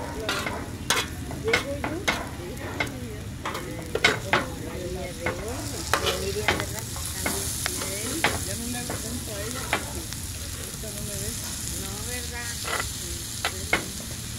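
Metal spoon stirring rabbit pieces and onions in a large steel pan over a wood fire: irregular sharp clinks and scrapes of metal on metal over steady sizzling, the sizzle growing stronger about halfway through.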